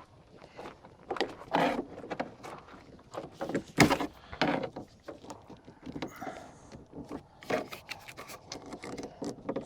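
Plastic interior trim being handled and pressed into place in a pickup cab: a string of irregular clicks and knocks, with one sharp, loudest knock about four seconds in.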